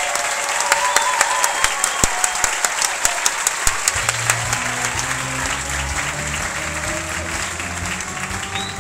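Audience applauding, with one nearby person's sharp claps standing out in the first half. About four seconds in, low bass notes begin playing under the applause as it slowly fades.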